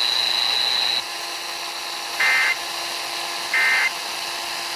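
Emergency Alert System end-of-message data bursts: two short, identical bursts of warbling digital tones about a second and a half apart, the NNNN code that closes the alert. Before them a steady high whine from the broadcast cuts off about a second in, and a faint steady hum runs underneath.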